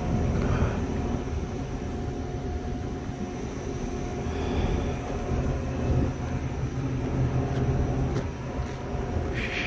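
Volvo Penta diesel engine of a crawler pile-driving rig running steadily: a low, even drone with a faint steady whine above it.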